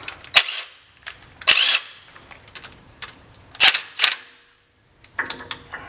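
Impact wrench in a few short, sharp bursts, snugging down a small 12 mm bolt on the front of a Toyota 4Runner's axle shaft with only light torque.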